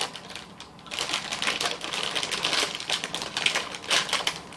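Plastic cookie packaging crinkling and rustling as it is handled: a dense run of rapid, irregular crackles starting about a second in.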